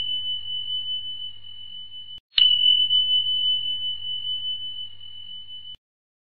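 High, pure bell-like ding sound effect, struck twice. The first note is already ringing and stops about two seconds in. A second strike follows just after, then fades slowly before cutting off about a second before the end.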